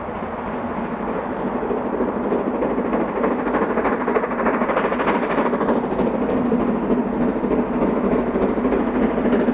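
Steam locomotive working hard as it pulls a train, its exhaust chuffing in a fast, steady beat and growing louder as it approaches.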